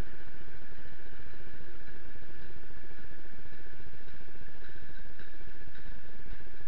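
Steady noise of a freight train hauled by an electric locomotive passing on the next track, even and unbroken.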